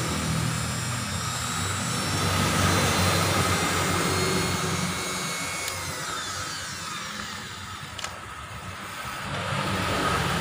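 Steady drone of an engine running, fading somewhat past the middle and growing louder again near the end.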